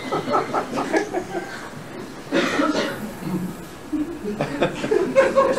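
People laughing and chuckling in short rapid bursts, with a short harsh cough-like burst about two and a half seconds in and more laughter and talk near the end.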